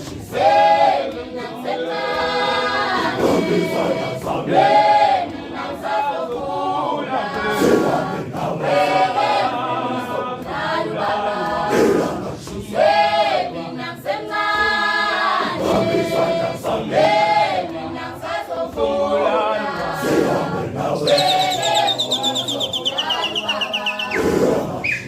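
A group of voices singing together in harmony, unaccompanied. Near the end a high whistle glides downward over the singing.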